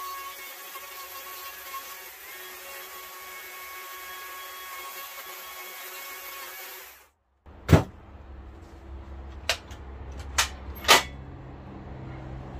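Electric power carving tool running with a steady high whine, cutting off abruptly about seven seconds in. Then come four sharp knocks spaced a second or so apart, the first the loudest, over a low hum.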